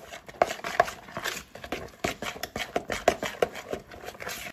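A spatula stirring and scraping a wet swordfish meatball mixture in a bowl. It makes a quick, irregular run of short strokes, several a second.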